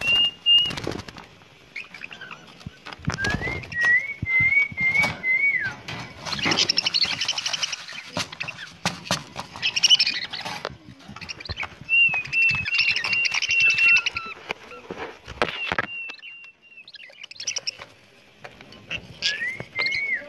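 Budgerigars chirping and warbling, with wavering whistled notes and bursts of fast chatter, amid scattered clicks and rustles in the cage.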